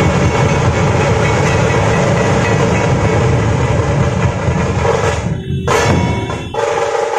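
Dhol-tasha troupe playing: many large dhol barrel drums and tasha drums beaten together in a loud, dense rhythm. The playing thins about five seconds in, and the deep drum sound stops just before the end.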